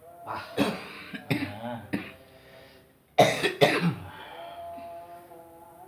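A man with a chronic cough coughing: a short run of coughs in the first two seconds, then two loud coughs a little after three seconds in, following a deep breath in.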